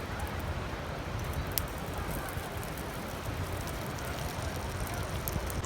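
Wood fire crackling, with a few sharp pops, over a steady low rumble.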